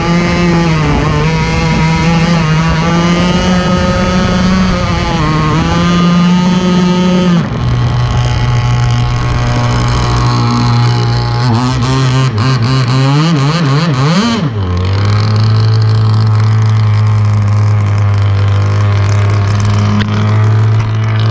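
Warehouse Hobbies Enforcer RC speedboat's engine, heard from on board, running fast with a steady high note that wavers a little. About seven seconds in the pitch drops as the boat slows, a few quick revs follow, and from about fifteen seconds it holds a steady lower idle.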